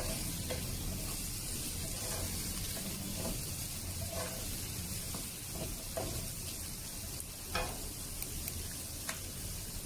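Diced vegetables (onion, carrot, peas, sweet corn) sizzling in oil in a wok while a wooden spatula stirs them. Scattered scrapes and taps of the spatula against the pan sound through a steady hiss.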